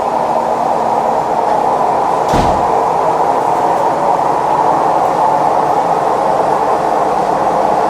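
Maytag Neptune MAH19 front-loading washer in its high-speed extract spin, running with a loud, steady roar from worn drum bearings. A single heavy knock comes about two seconds in, with the machine standing unlevel.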